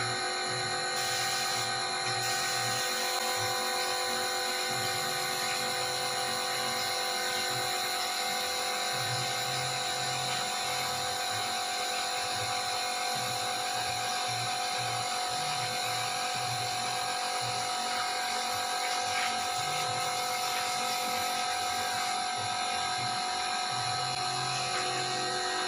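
Air compressor and spray gun spraying wood finish: a steady machine whine with the hiss of spraying air, under a low hum that cuts in and out every second or so.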